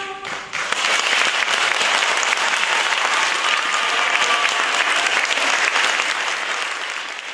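An audience applauding just after a youth choir ends its song on a held chord; the clapping starts about half a second in, runs on steadily and fades near the end.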